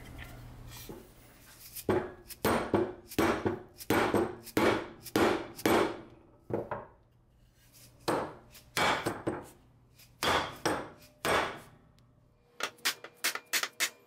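Hand-forged hatchet with a wooden handle knocked repeatedly against a steel bench vise: sharp wood-and-metal knocks, about seven at roughly two a second, then a single one and two shorter groups of about four.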